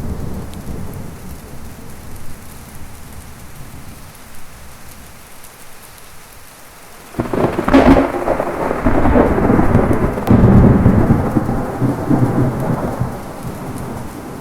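Heavy rain with thunder. An earlier rumble fades away over the first half, then about halfway through a sudden thunderclap breaks into a loud rolling rumble that lasts several seconds and eases near the end.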